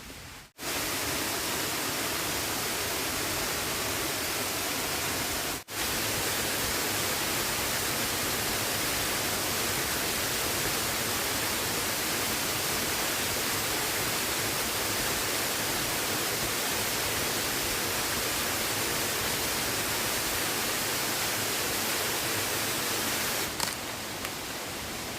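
Steady, even rushing of water, loud and unbroken except for two brief dropouts in the first six seconds; it becomes quieter near the end.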